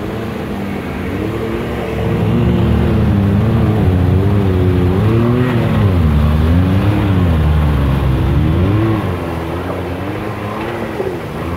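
Can-Am Maverick X3 X RS side-by-side's turbocharged three-cylinder engine revving up and down in uneven surges as it drives up a flooded creek, with water splashing and rushing around its wheels. It is loudest from about two seconds in and eases off near the end.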